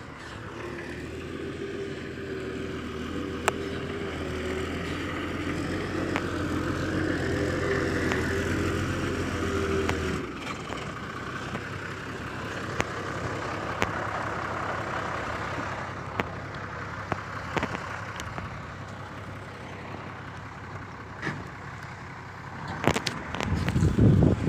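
Hyundai dump truck's diesel engine running as the truck works over loose dirt. It is a steady drone for about the first ten seconds, then eases off, with a burst of loud low rumbling near the end.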